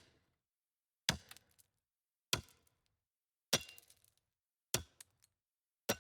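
A sharp knock repeated at an even beat about every 1.2 seconds, five times, each dying away quickly, with dead silence between the knocks.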